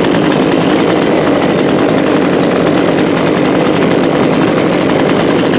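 Poulan Pro PP4218AVX 42cc two-stroke chainsaw engine running steadily at an even level.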